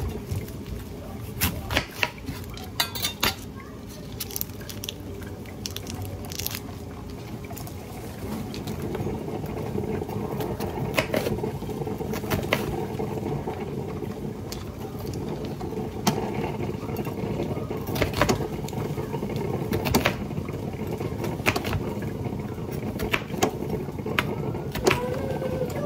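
Zucchini sautéing in a hot frying pan, sizzling steadily, with scattered clicks and knocks of a utensil against the pan as it is stirred.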